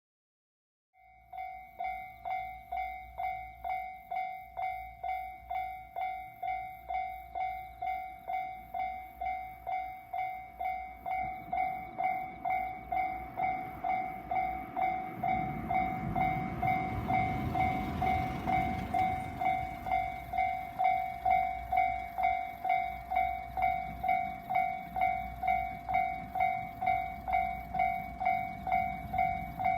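Japanese railway level crossing warning bell starting up and ringing in a steady rhythm of about two dings a second. Partway through, a local train passes over the crossing with a swelling rumble of wheels on rail, while the bell keeps ringing.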